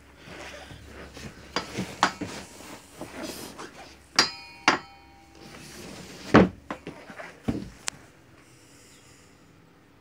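Knocks and clinks from the wooden dinette seat base and its storage lid being handled, with a heavy thump about six seconds in.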